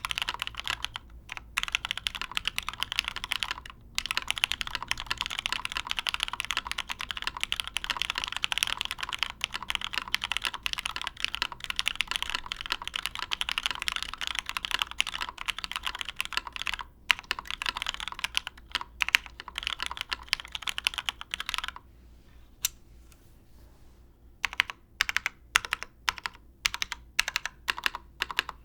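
Fast, continuous typing on a Matrix Labs 1.2OG custom mechanical keyboard: lubed Cherry MX Black Hyperglide linear switches with films, in a top-mounted aluminium plate, under GMK keycaps. About three-quarters of the way through the typing stops briefly, then resumes as slower, separate key presses.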